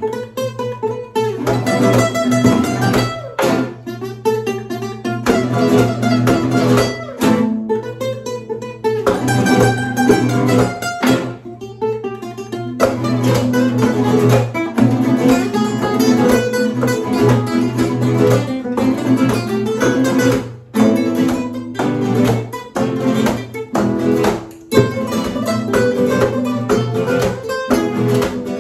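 Four nylon-string classical guitars playing a piece together, picked notes and chords in a steady rhythm.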